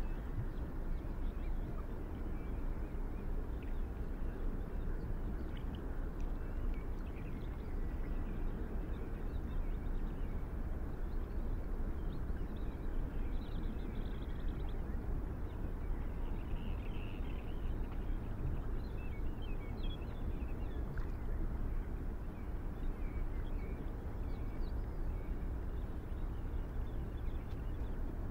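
Steady low outdoor background rumble, with faint short high chirps scattered through it, most of them in the middle.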